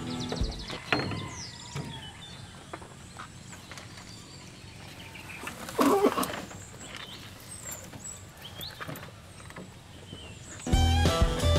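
Quiet outdoor farm ambience with a short, loud rustling knock about six seconds in as a bunch of leafy greens is pushed through a bamboo rabbit hutch door. Background music fades out near the start and comes back near the end.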